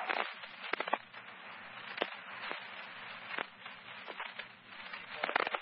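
Fire department radio channel hissing with static between transmissions, with sharp crackling pops scattered through it, heard through a radio scanner.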